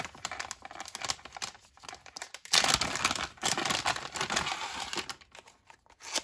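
Plastic zip bag crinkling as it is handled and pulled open to take out a small cardboard box, loudest about two and a half seconds in and dying down near the end.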